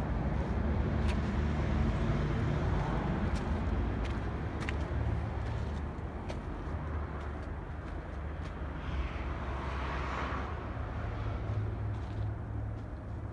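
Steady low outdoor rumble with a few faint clicks and no speech.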